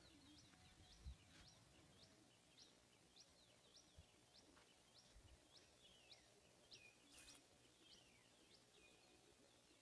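Faint bird calls: a short, high, upturned note repeated about three times a second, with a few down-slurred notes mixed in.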